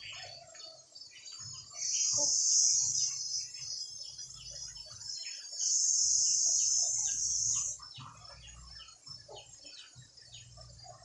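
Birds chirping in many short, quick calls throughout. Two long, high-pitched buzzing hisses, each lasting about two seconds, are the loudest sounds: the first starts about two seconds in and the second around six seconds in.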